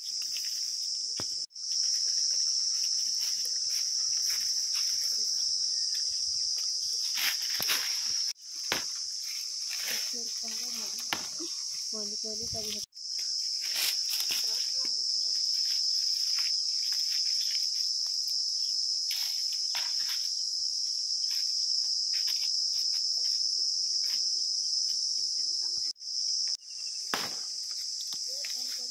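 Steady, high-pitched chorus of insects shrilling without pause, broken only by a few brief gaps.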